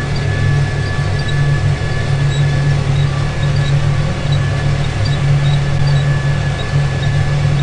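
Tractor engine running steadily under load, pulling a disc harrow through corn stubble, heard from inside the cab, with a thin steady high whine over the low drone.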